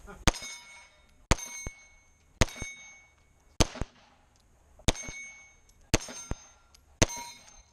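Pistol fired seven times at steel plate targets, about one shot a second. Most shots are followed by the short metallic ring of a steel plate being hit.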